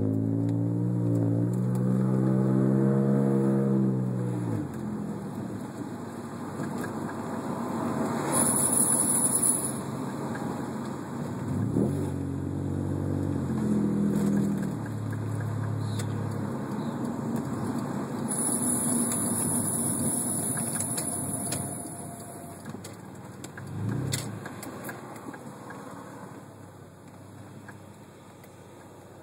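Subaru SVX driving, its engine pulling with a steady note, while a high-pitched brake squeal rings out twice: briefly about eight seconds in, then for about four seconds past the middle. The owner traces the squeal to the passenger-side brakes and finds braking unaffected.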